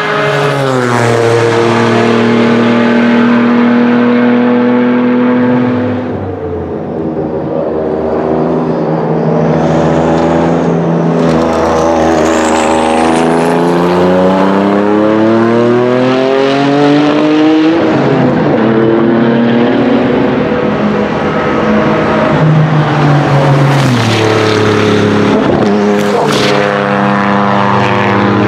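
Venturi 400 Trophy's PRV 3.0-litre twin-turbo V6 race engine running, its pitch holding steady for a few seconds at a time and then rising and falling several times as the throttle and gears change. Two sharp cracks sound about three-quarters of the way through.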